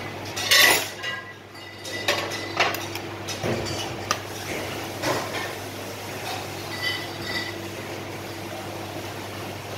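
Small stainless steel bowls and a utensil knocking and clinking on a stainless steel worktop. A loud metallic knock with a short ring comes about half a second in, followed by several lighter clinks. A steady low hum runs underneath.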